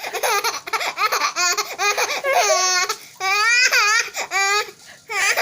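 A baby laughing hard: a quick run of high-pitched laugh bursts, then a couple of longer squealing laughs.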